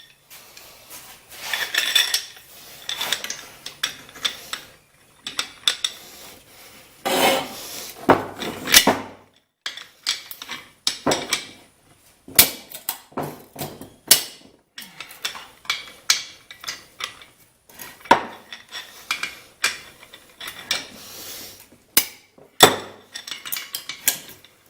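Metal hand tools clinking, knocking and scraping against a Briggs & Stratton L-head engine as its over-torqued half-inch cylinder head bolts are worked loose. The sharp clinks come at irregular intervals, with short rubbing scrapes between them.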